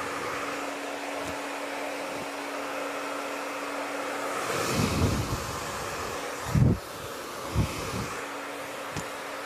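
Hand-held hair dryer running steadily, a rushing blow with a low motor hum, while hair is brushed straight. In the middle come a few loud low gusts or bumps, the loudest about two-thirds through, as the air stream or handling hits the microphone.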